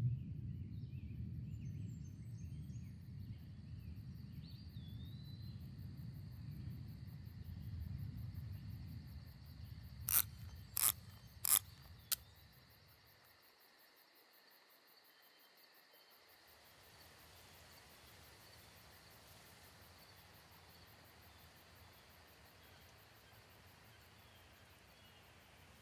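Quiet ambience: a low drone fades away over the first half under a faint, steady insect-like hum, with a few short bird-like chirps at the start. About ten seconds in come four sharp clicks roughly half a second apart, then only the faint hum and a soft low rumble.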